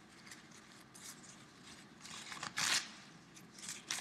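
Brown paper towel being torn into strips by hand: faint rustling and small tearing sounds, with one longer, louder tear about two and a half seconds in.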